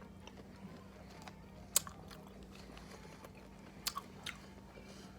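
Chewing food close to the microphone, with a few sharp clicks about two and four seconds in, over a faint steady hum.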